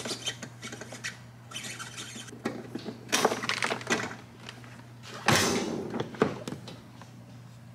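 Hard motorcycle saddlebag being unlatched and lifted off: a few short scrapes, clicks and knocks of the bag and its latches. A steady low hum sits underneath.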